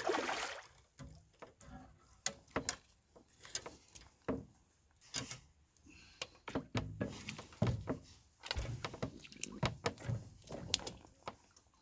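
Newly stocked carp splashing at the water surface: a bigger splash at the start, then scattered slaps and knocks at irregular intervals.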